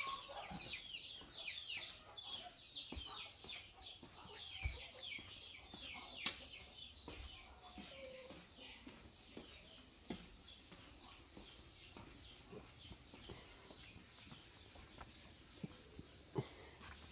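Birds chirping faintly in a fast run of short, high notes that fall in pitch, busiest in the first few seconds and thinning out later. A steady high whine sits underneath, and there are a couple of soft knocks.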